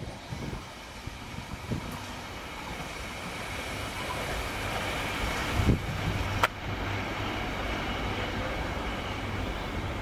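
Freight train of open box wagons rolling away after passing, a steady low rumble of wheels on the rails as the tail recedes. A low thump comes a little past halfway, with a sharp click just after it.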